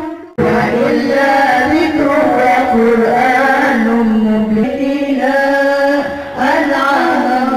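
Women's voices chanting Islamic devotional verses into microphones in long, sustained melodic phrases. The chanting comes in abruptly after a brief silence and pauses briefly twice between phrases.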